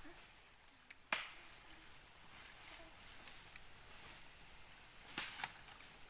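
Two sharp knocks, one about a second in and a doubled one about five seconds in, over a steady high-pitched hiss.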